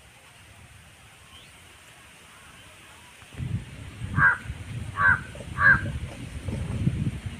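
A crow cawing three times in quick succession, each call short and under a second apart, over a low rumble that starts about three seconds in.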